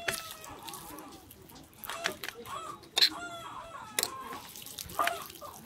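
Chickens clucking, with a rooster crowing, behind sharp wet clicks and slaps from hands kneading marinated pork slices in a stainless steel bowl. The loudest click comes near the end.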